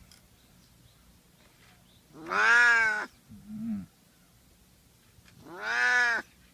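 Domestic cat meowing: two long, drawn-out meows that rise and then fall in pitch, about three seconds apart, with a short low call in between.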